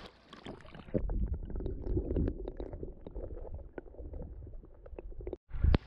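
Muffled underwater sound of a shallow river heard by a submerged action camera: low rumbling and gurgling with scattered sharp clicks. A sharp, loud thump comes near the end.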